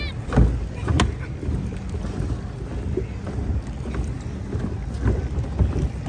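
Outdoor beach ambience: a steady low rumble with wind on the microphone, scattered faint distant voices and small clicks, and a brief high-pitched call right at the start.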